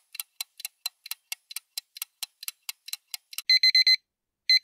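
Quiz countdown-timer sound effect: a clock ticking fast, about four or five ticks a second. About three and a half seconds in, the ticking gives way to a digital alarm clock beeping in quick bursts, signalling that time is up.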